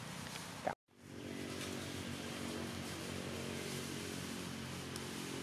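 An engine running steadily with an even, low hum. It starts about a second in, after a brief drop-out.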